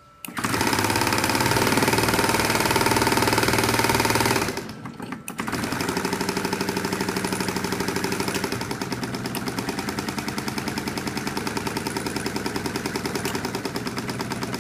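Student-built compressed-air engine running with a fast, even pulsing beat. It starts abruptly, drops out for about a second around four and a half seconds in as the speed controller switches its valves, then runs again a little quieter at roughly 550 to 700 rpm.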